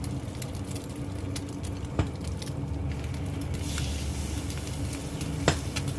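Marinated pork chops sizzling and crackling in hot oil in a wok, with two sharp clicks, about two seconds in and near the end, as chopsticks lay a second chop in the pan. A steady low hum runs underneath.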